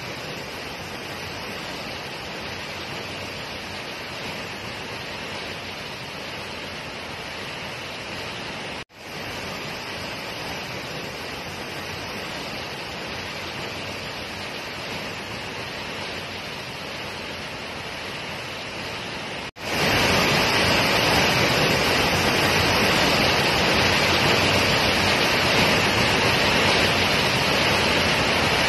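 Tall waterfall plunging into a pool, a steady rushing roar of falling water. It breaks off for an instant about nine seconds in and again near twenty seconds, and is much louder after the second break.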